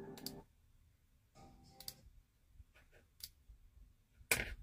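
A few sharp, faint clicks scattered over the quiet, with a stronger one near the middle and another near the end.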